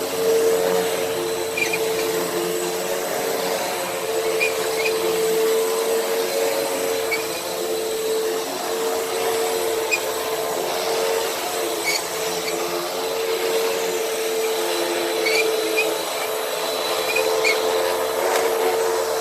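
Hoover WindTunnel upright vacuum cleaner running steadily on a rug, a constant motor whine over the rush of air, with a few scattered small ticks.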